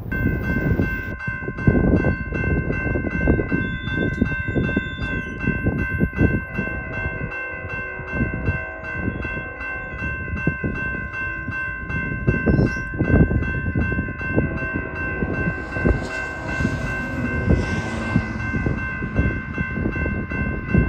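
Railroad grade-crossing warning bell starting up and ringing in a fast, even, steady clang as a freight train approaches. Wind gusts buffet the microphone underneath.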